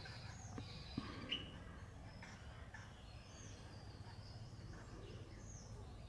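Faint, scattered short bird chirps over a steady low background hum, with two sharp clicks a little after a second in.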